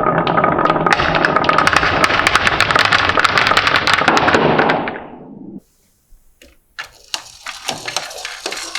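Many marbles clattering and clicking down a wooden marble run in a dense, rapid rattle that dies away about five seconds in; after a short gap, a few scattered clicks of single marbles follow.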